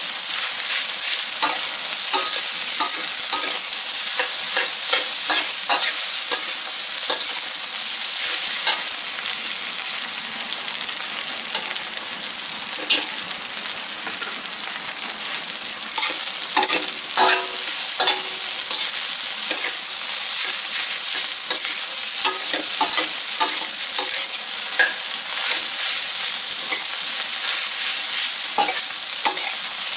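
Fried rice sizzling in a stainless-steel wok while a metal spatula scrapes and taps against the pan, stirring and turning it. The scraping lets up for a few seconds around the middle, leaving mostly the sizzle.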